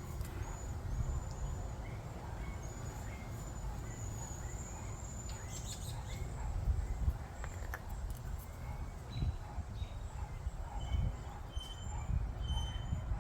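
Outdoor ambience: small birds chirping in short, high notes throughout over a low, uneven rumble, with a few faint clicks near the middle.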